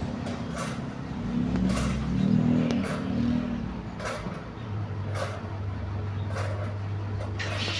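Electric fan running with a steady low hum and a short swishing noise that recurs about once a second, the strange noise the fan is making.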